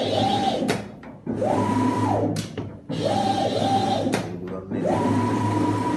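Glass cutting machine's drive motors running through repeated moves. About four times, a motor whine rises in pitch, holds level, then falls away, over a steady low hum, with short clicks in the pauses between moves.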